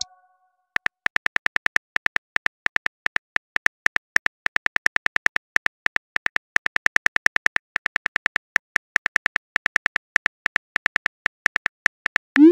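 Phone keyboard tap clicks from a texting app, about six a second, as a message is typed out letter by letter. A short rising tone at the very end is the message-sent sound.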